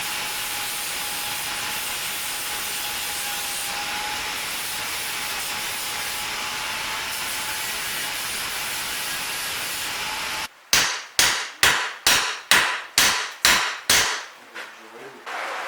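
Metalwork on a VAZ Zhiguli exhaust muffler: about ten seconds of steady, hissing power-tool noise with a faint whine, which stops abruptly. It is followed by nine quick, regular strikes, about three a second, like hammer blows on metal.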